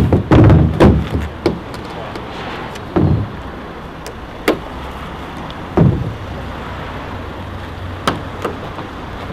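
A few irregular knocks and thumps over a steady low rumble.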